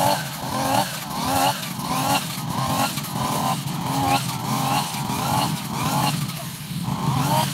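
Backpack brush cutter engine running at high speed while cutting grass, its note swelling and rising in a regular cycle about one and a half times a second as the cutting head sweeps back and forth.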